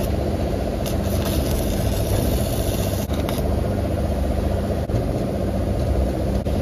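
A stick welder burning a rod on the steel fork carriage of a forklift, over a steady low machine hum, with a few faint clicks.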